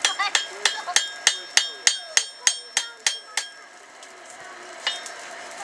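Hand hammer striking a knife blade on a steel anvil while forging it: a steady run of blows, about three a second, each with a short metallic ring. The blows stop after about three and a half seconds, and one more falls near the end.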